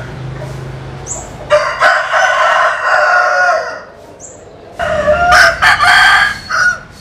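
Roosters crowing: two long crows, one starting about a second and a half in and another near the end.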